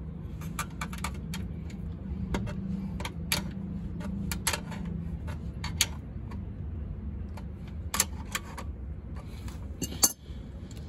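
Irregular metallic clicks and taps of a small wrench working the purge plug on a stainless steel water pump's head, with the sharpest click about ten seconds in as the tool is set down. A low steady hum sits under the first half.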